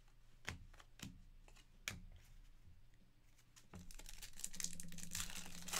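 Basketball trading cards being handled on a table: three light clicks, then a steady rustle of cards and wrappers from about two thirds of the way in.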